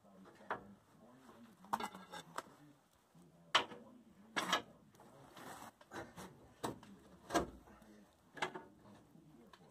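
Metal tools knocking and scraping against a GM A-body's front coil spring and lower control arm as the spring is pried toward its pocket: a string of separate clanks and scrapes, with a dull thump a little past seven seconds in.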